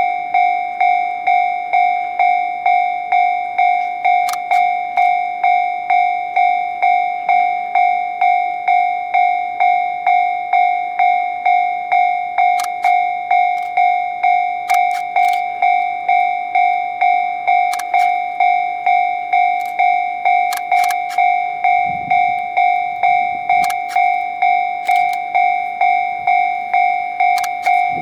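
Japanese railway level-crossing alarm ringing steadily, an electronic two-tone ding at about two strikes a second, warning of an approaching train. Scattered sharp clicks and a brief low rumble come through it in the second half.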